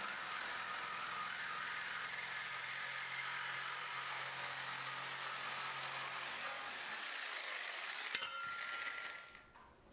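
Corded reciprocating saw cutting through a steel pickup-truck frame rail, running steadily with a high motor whine. Near the end the whine falls in pitch as the motor winds down, and a click follows.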